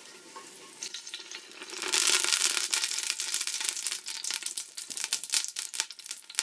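Hot olive oil sizzling and crackling in a stainless steel stockpot, the crackle starting loudly about two seconds in and easing off near the end.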